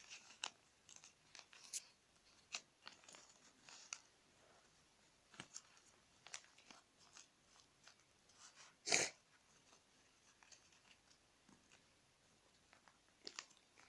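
A paper sheet being folded and creased by hand: scattered soft crinkles and rustles, with one louder crackle about nine seconds in.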